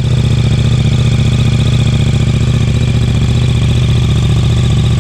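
Kawasaki Z750R's inline four-cylinder engine idling steadily through an aftermarket Leo Vince SBK exhaust.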